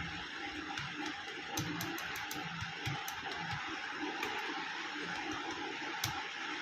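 Typing on a Portronics Bubble wireless keyboard: irregular key clicks over a steady background hiss, with one sharper click about six seconds in.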